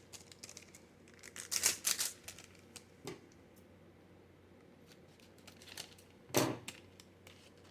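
Trading cards and their foil pack wrappers being handled: short bursts of rustling, crinkling and card clicks, the loudest about two seconds in and again near the end.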